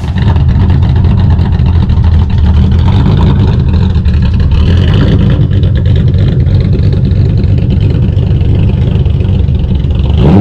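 A car engine running loudly and steadily with a deep rumble. It cuts in suddenly.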